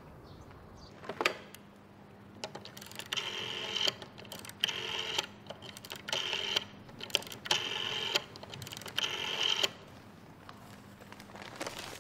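Red rotary-dial telephone being dialed: a knock about a second in, then the dial whirring and clicking back five times, each return under a second, with short pauses between digits.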